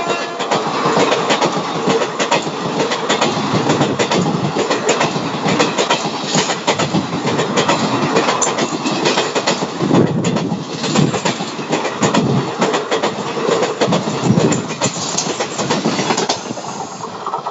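Indian Railways express passenger train passing at speed: a loud, steady rush of coaches with rapid, irregular clicking of wheels over the rail joints.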